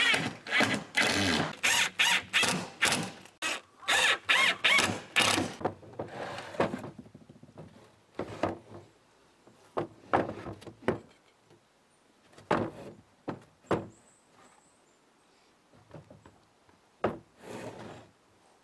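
Sliding shed doors made from reused rain shutters rumbling and rattling along their track, with some squeal, for the first several seconds. Then a series of separate knocks as the panels are pushed and stop against the frame.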